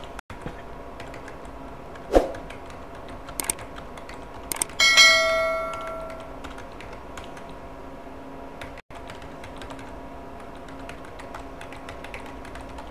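Typing on a computer keyboard, scattered key clicks entering numbers, with a sharp thump a little after two seconds. About five seconds in, a bell-like chime from a subscribe-button sound effect rings and fades over a second or so.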